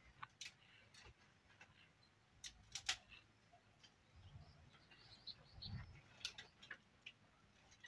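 Faint, sparse clicks and snaps of dry firewood sticks being picked up and handled, with a couple of soft low thumps a little after the middle.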